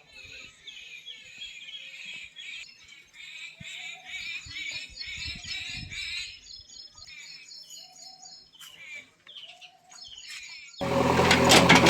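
Several small birds chirping and twittering in quick repeated calls. Near the end, a JCB 3DX backhoe loader's diesel engine cuts in abruptly, loud, with rattling.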